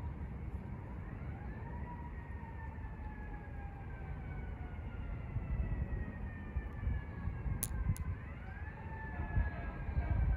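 A distant siren wailing: its pitch sweeps up quickly about a second in, slides slowly down for several seconds, then sweeps up again about eight seconds in. A low rumble runs underneath, and two sharp clicks come just before the second rise.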